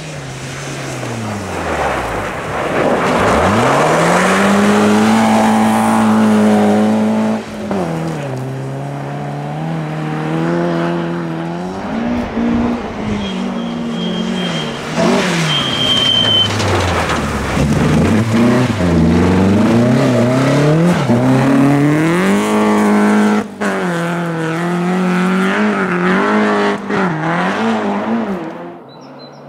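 Rally car engine driven hard on a snow stage, revving up and dropping back again and again as the driver shifts gears and lifts off the throttle. It fades away near the end.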